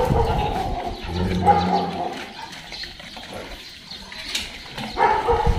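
Dog vocalizing with pitched calls, in the first two seconds and again near the end.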